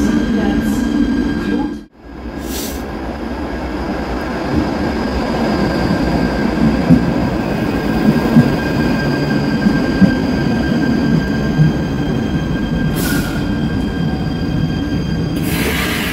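Cologne Stadtbahn light-rail train in an underground station: a steady rumble with a thin electrical whine. A few sharp clicks come in the middle, and there are short hisses about thirteen seconds in and again near the end. The sound briefly cuts out about two seconds in.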